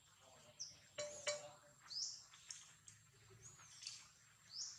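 A bird calling repeatedly in short, high, arched chirps about once a second, faint, with a couple of sharp clicks about a second in.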